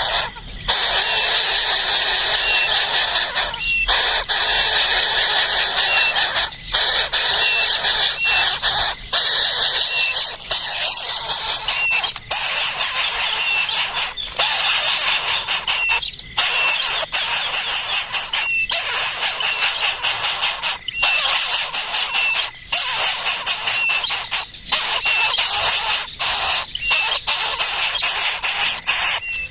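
Baby birds begging: a continuous, loud, harsh shrill calling that breaks off for a moment every second or two, with a small repeated chirp over it.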